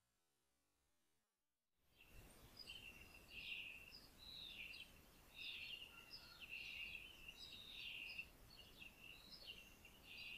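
Small birds chirping: many short, high calls in quick succession over a faint outdoor hiss, starting about two seconds in after near silence.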